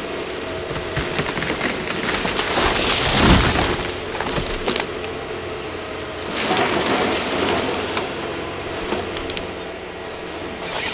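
A Ponsse harvester's engine running steadily while a felled conifer comes down, its branches cracking and rushing through the brush in two swells, the louder about three seconds in and another from about six seconds.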